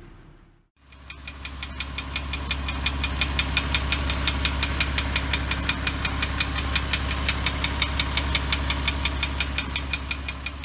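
Porsche Cayman S 3.4-litre flat-six engine running steadily with a regular sharp ticking knock, about six a second. The owner suspects a hydraulic lash adjuster but thinks it may be piston knock.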